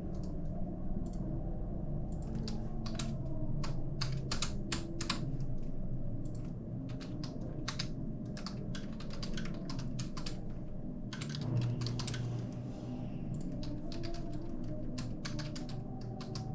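Computer keyboard typing: quick, irregular runs of keystrokes with short pauses between them, over a steady low hum.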